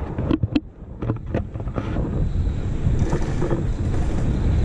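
Wind buffeting the microphone of a camera mounted on a moving bicycle: a steady low rumble that drops off briefly about half a second in, then returns.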